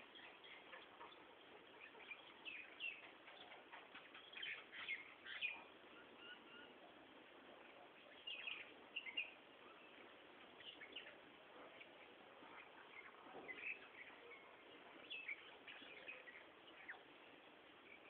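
Faint, short bird chirps coming in scattered clusters over a quiet background hiss.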